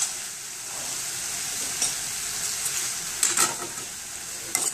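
Chopped fenugreek (methi) leaves frying in oil in a stainless steel kadai with a steady sizzle, while a steel spoon stirs in the spice powders, scraping and clinking against the pan a few times, most strongly about three seconds in and again near the end.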